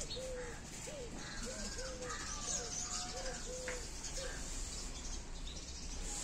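A series of short, evenly spaced animal calls, about two a second, each note rising and falling in pitch, fading out about four seconds in.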